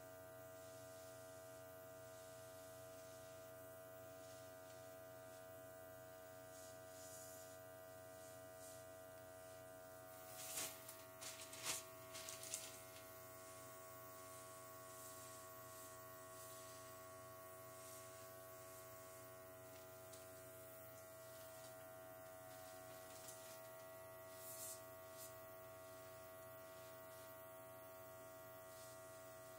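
Faint, steady electric hum of a small makeup airbrush compressor. A few light knocks and clicks come about a third of the way in.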